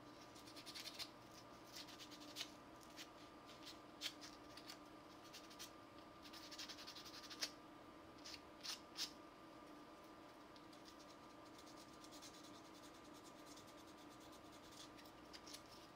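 Light scratching and rubbing on a small resin cast model part worked in the hands, with a few small clicks, mostly in the first nine seconds; a faint steady hum runs underneath.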